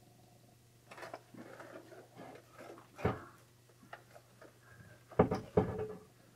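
Handling sounds of a Stihl chainsaw with its engine off being moved about: rustling and light rattles, with a sharp knock about three seconds in and two more near the end.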